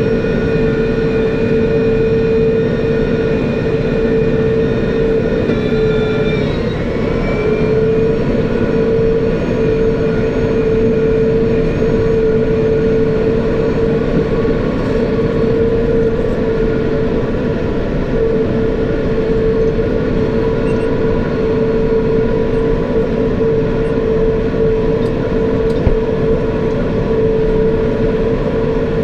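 Tractor engine running steadily while driving a New Holland round baler, with a short shift in pitch about six seconds in before it settles again.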